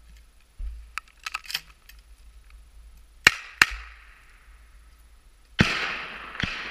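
Sharp gunshot reports on a firing range: two cracks close together, then about two seconds later a louder report that trails off in a long echo, followed by one more crack. A few light clicks come before them.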